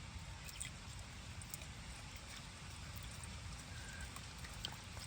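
Faint water trickling and dripping over a low rumble, with scattered small clicks.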